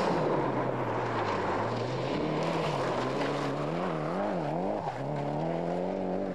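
Mitsubishi rally car's engine running hard on a gravel stage. The revs rise and fall several times, wavering quickly up and down about two-thirds of the way through, over a steady hiss of gravel under the tyres.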